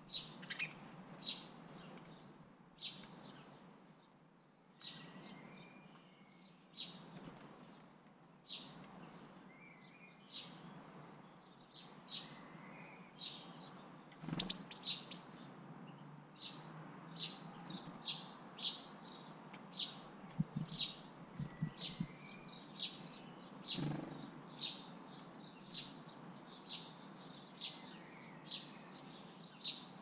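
House sparrow chirping over and over, a short high cheep about once a second, with fainter twittering from another bird now and then. A few knocks fall in the middle part.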